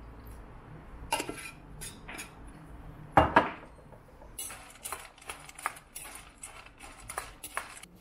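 Metal spoon clinking and scraping against a stainless steel bowl of dry kibble as a dog's meal is prepared, with a louder clatter about three seconds in and a run of quick taps after it.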